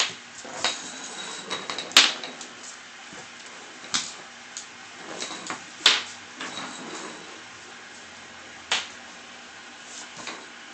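A few sharp knocks and clatters, each on its own and one to three seconds apart, over a low steady hum.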